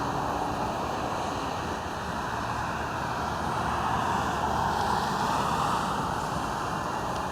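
Steady outdoor background hiss, swelling slightly about two-thirds of the way through, with no thunder.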